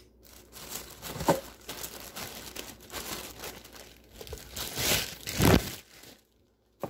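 Plastic wrapping crinkling and cardboard dividers rubbing as plastic-wrapped cookware is handled and pulled out of its box, with the loudest rustling about five seconds in and a brief silence near the end.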